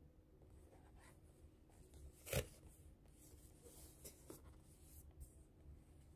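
Fingers handling and turning a cardboard cake box, faint rubbing and rustling on the card, with one sharp tap or knock about two seconds in.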